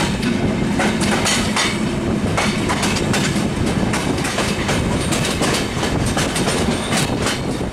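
Sundarban Express passenger coach rolling along, heard from an open window aboard: a steady rumble with irregular clickety-clack as the wheels cross rail joints.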